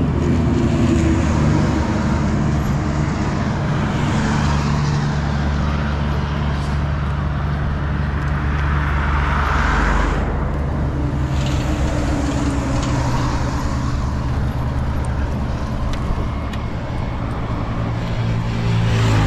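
Kawasaki Z800 inline-four engine running steadily at low speed. A louder rush of passing traffic comes and goes about ten seconds in.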